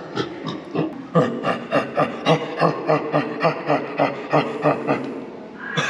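A gorilla 'pig grunt' call: a run of short, rhythmic grunts, about three a second, starting about a second in and stopping shortly before the end.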